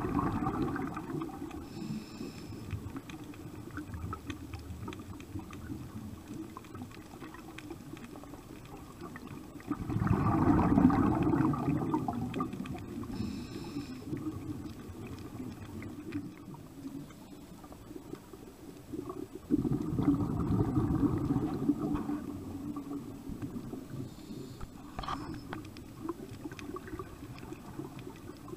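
Scuba diver's regulator breathing underwater: three surges of exhaled bubbles rushing and gurgling past, about ten seconds apart, each fading over a few seconds, with faint brief hisses between them.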